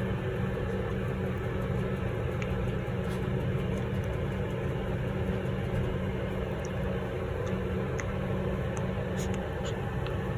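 A steady low mechanical hum, unchanging throughout, with a few faint small ticks.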